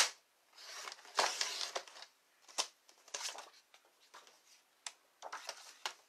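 A sharp click at the start, then a string of short scraping, rustling strokes: white cardstock being set in place and cut on a Stampin' Up! paper trimmer.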